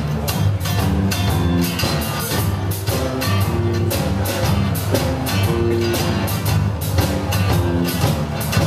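Live band music: acoustic guitar and electric bass playing over a steady drum beat, with the bass notes prominent.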